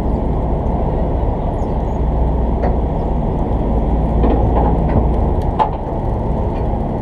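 Steady low rumble of the fishing boat's engines running, with a few faint clicks.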